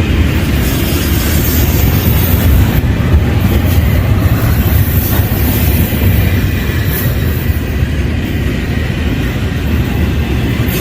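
Union Pacific intermodal freight train rolling past, with a loud, steady rumble of wheels on the rails.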